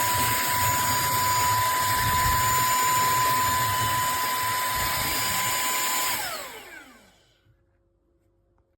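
Cordless handheld vacuum cleaner running at full power with a steady high whine, then switched off about six seconds in, its motor spinning down with a falling whine as the airflow dies away.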